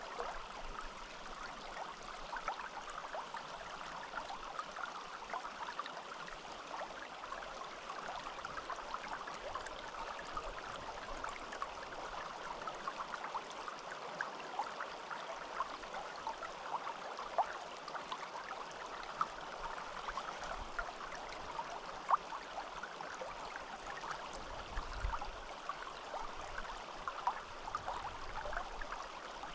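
Small forest stream flowing steadily, with continuous trickling and splashing water.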